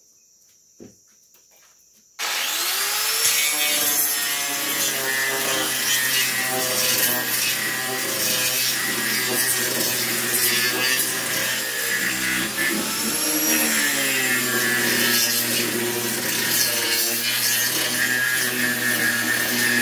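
Faint crickets, then about two seconds in an angle grinder starts abruptly and runs loud and steady as its disc grinds across the surface of a rough wooden slab tabletop. The motor's pitch sags briefly a few times as the disc bites into the wood.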